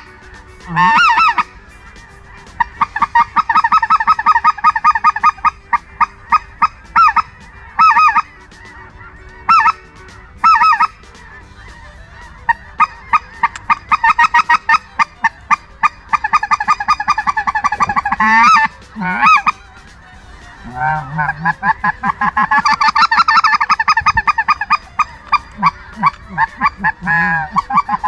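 A hand-blown waterfowl call sounding in loud series of honks and quacks with rapid chattering runs, broken by short pauses, as the blind calls to passing birds.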